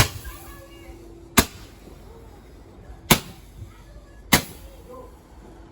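Fireworks going off: four sharp bangs, irregularly spaced over about four and a half seconds.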